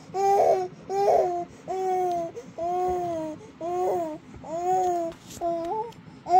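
A baby crying in short, evenly repeated wails, about eight of them at a little over one a second, each on a steady pitch.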